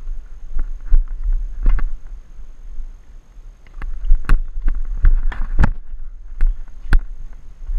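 Wind buffeting the GoPro's microphone in a steady low rumble, cut through by irregular sharp knocks, the loudest between four and seven seconds in.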